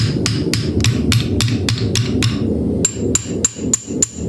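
Hammer blows on metal in a steady rhythm, about four a second. From about three seconds in, each blow rings with a high, clear metallic note. A low steady rumble underneath fades out partway through.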